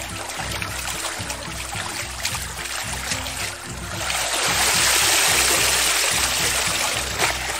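Water sloshing as a wicker basket of sheep's wool is worked in a running channel; about four seconds in, the basket is lifted and water pours out of the wool for about three seconds, the loudest part. Background music plays throughout.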